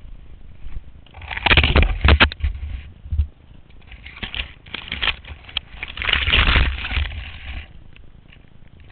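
Skis turning through deep powder snow, with snow spraying over the camera: three loud swishing surges, about a second and a half in, around four to five seconds, and from about six to seven and a half seconds, with wind rumble on the microphone.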